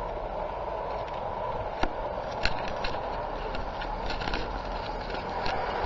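O gauge model train running on garden track toward the microphone: a steady rolling hum with scattered sharp clicks of wheels over the rail joints, beginning to grow louder near the end.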